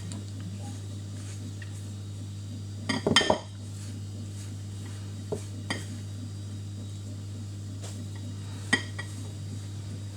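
A spoon clinking and scraping against a bowl while stirring a stiff flour dough: a short flurry of clinks about three seconds in, then a few single clicks, over a steady low hum.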